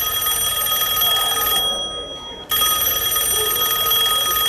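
Telephone ringing in two long rings: the first stops about two seconds in, and the second starts after a short pause.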